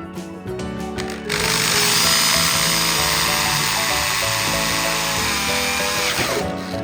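Background music with a steady beat, and over it a power tool running from about a second in until shortly before the end, with a dense hissing, grinding-like noise.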